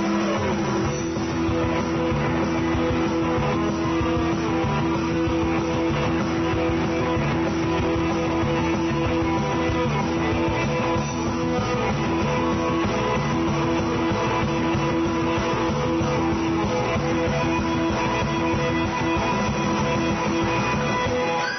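Guitar-led rock music with strummed guitar chords playing steadily.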